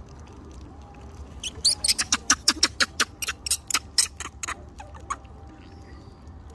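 A rapid run of sharp, loud clicks, about five or six a second, starting about a second and a half in and lasting some three and a half seconds.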